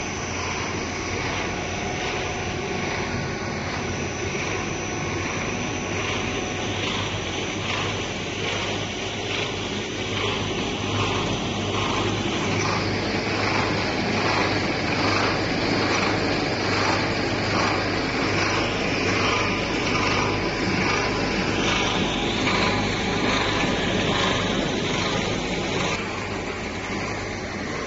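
Chocolate-filled puffed-snack processing line running: steady machinery noise with a constant low hum and a faint, regular pulsing beat.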